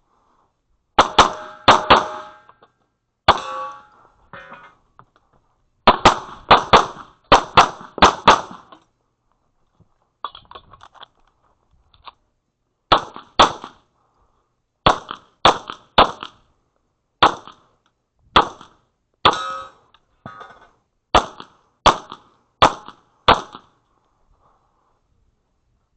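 Pistol shots fired in fast pairs and quick strings, each with a short metallic ring after it: about two dozen shots from about a second in until near the end. There is a pause in the middle with only faint clatter.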